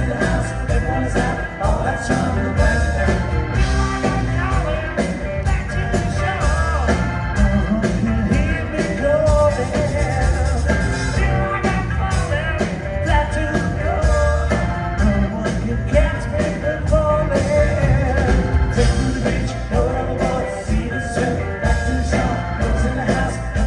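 Live rock band playing: electric guitars, bass guitar and drums with a steady beat.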